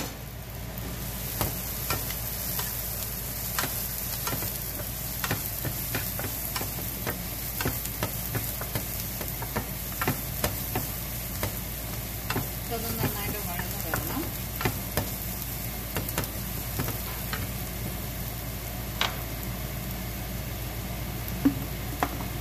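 Chopped shallots, curry leaves and ginger-garlic paste sizzling in coconut oil in a non-stick frying pan, with a steady hiss, while a wooden spatula stirs them, clicking and tapping against the pan.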